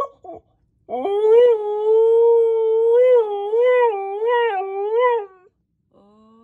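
Siberian husky howling: the tail of one howl, then a single long howl held at a steady pitch that wobbles up and down several times near its end, a young dog's first, slightly off-key howls. A fainter, lower voice begins right at the end.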